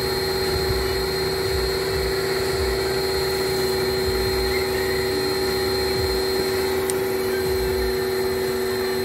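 A motor running steadily with a constant whine and hum, its pitch unchanging.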